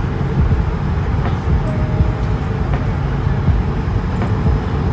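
Steady low cabin noise of an Airbus A220-300 airliner in flight, the airflow and engine noise heard from a passenger seat, with a few faint clicks.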